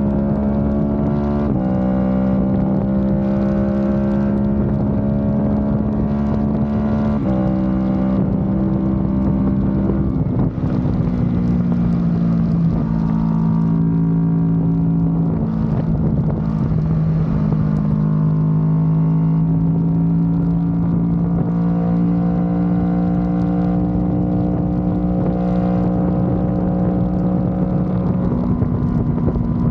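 Kawasaki Ninja 650 parallel-twin engine running through an Akrapovic exhaust at steady cruising revs. The pitch climbs slowly, then steps to a new pitch several times as gears change, with one jump up near the end. Wind rushes over the microphone throughout.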